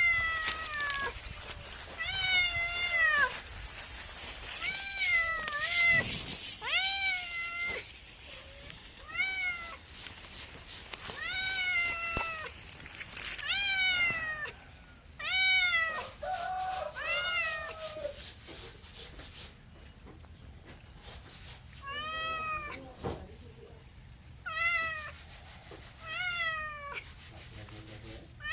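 A cat meowing again and again, about a dozen separate meows, each rising and then falling in pitch, with a short lull about two-thirds of the way through.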